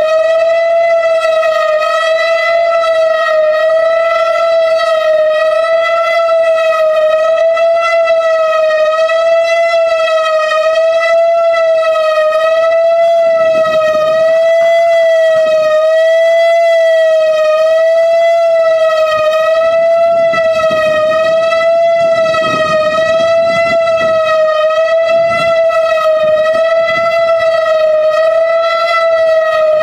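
Whelen 4004 electronic tornado siren sounding its steady test tone: one loud held pitch with a slight, regular wavering.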